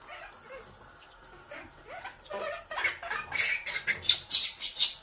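Baby monkey squealing under running shower water: short rising squeaks at first, building into a quick run of loud, shrill shrieks in the last two seconds.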